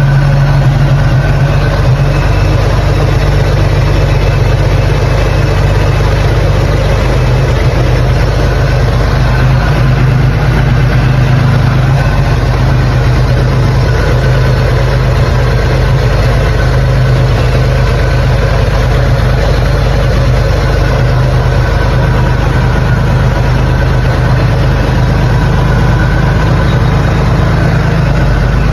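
Car engine idling steadily with an even, unchanging note, running while its ignition timing is checked.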